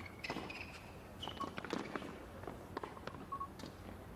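A tennis rally on a hard court: several sharp racquet-on-ball strikes mixed with short, high squeaks of shoes on the court.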